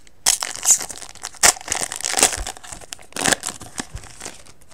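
Foil wrapper of a 2012 Bowman baseball card pack crinkling and tearing as it is opened, a run of sharp crackles that dies away near the end.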